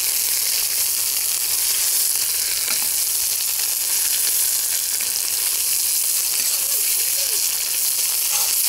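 Sliced onions sizzling steadily in very hot oil in a new cast-iron kazan, stirred with a metal slotted skimmer. The onions are being fried to season the pot and are already starting to scorch.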